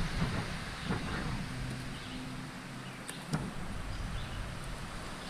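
Steady rushing noise of the creek, with a few sharp clicks a little after three seconds in.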